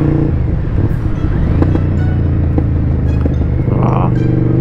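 Honda VTR's V-twin engine heard from the rider's seat while riding. About a third of a second in, the steady note breaks into an uneven low rumble as the throttle comes off. Near the end it settles back into a steady note that rises slightly as it pulls again.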